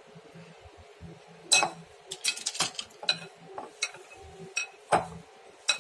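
Irregular light clinks and taps against a glass mixing bowl as a sticky coconut mixture is scooped and pressed out of it by hand, with the sharpest knocks about a second and a half in and again about five seconds in.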